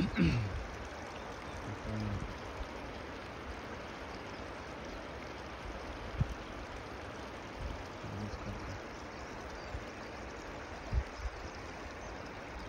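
Mountain waterfall rushing steadily, with a few short low thumps on the microphone.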